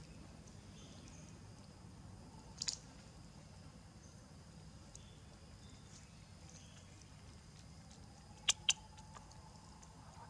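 Young macaque eating a peeled banana: faint mouth and chewing sounds, with one sharp click about a quarter of the way in and two quick sharp clicks close together near the end.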